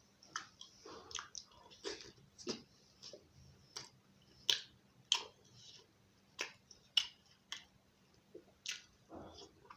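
Close-up chewing and mouth sounds of someone eating curry with roti: irregular wet smacks and sharp clicks, a dozen or so, with a softer squelch near the end.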